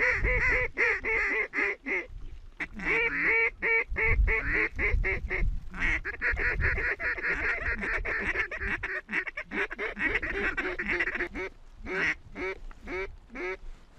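A large flock of geese calling in flight overhead, many honking calls overlapping, thinning out near the end.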